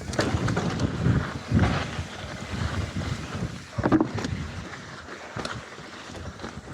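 Wind buffeting an action camera's microphone as a mountain bike rides down a trail, in irregular gusts that ease off in the second half, with a sharp knock about four seconds in.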